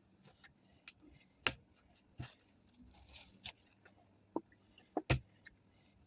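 Toothpick and paper towel working in the nooks of a Zippo lighter insert: scattered small clicks and scrapes at irregular times, the loudest about a second and a half in and near the end.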